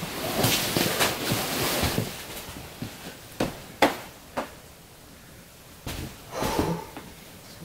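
A climber's hands and shoes scraping and knocking on sandstone while he moves up a crack: a couple of seconds of scuffing, then three sharp knocks spaced about half a second apart, and a short grunt near the end.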